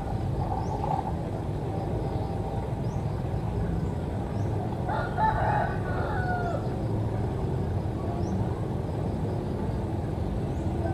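A rooster crowing once, about five seconds in, a single call of roughly a second and a half, over a steady low background rumble.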